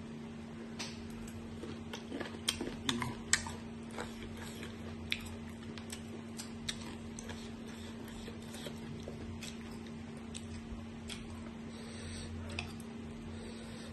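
Slices of green mango being chewed, with scattered light clicks of metal forks against a china plate, thickest about two to three seconds in, over a steady low hum.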